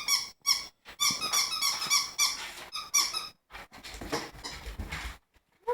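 Squeaky dog toy squeaked quickly over and over as a dog chews it, for about three and a half seconds. Then comes a second or so of rustling and low knocks, and one more short squeak near the end.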